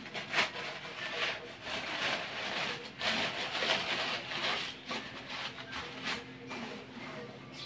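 Crumpled newspaper rustling and crinkling in repeated irregular bursts as it is pulled off plates by hand.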